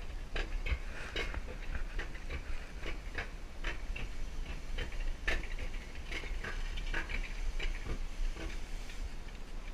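Alpine coaster cart riding its metal rails up the lift section, with irregular clicks and clacks every few tenths of a second over a steady low rumble.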